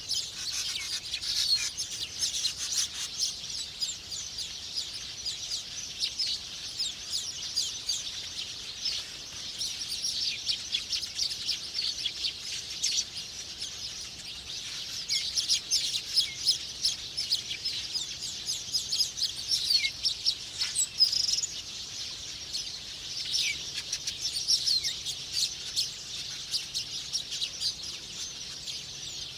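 Small birds twittering: a dense, continuous stream of short, high-pitched chirps, with a few louder notes here and there.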